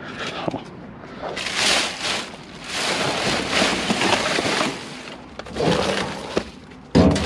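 Plastic trash bags and loose paper rustling and crinkling in several stretches as gloved hands dig through a dumpster, with a loud thump near the end.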